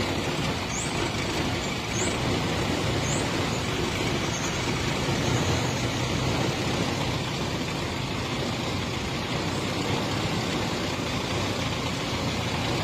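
Car engine running steadily with heavy mechanical noise, the sound of an engine close to breaking down.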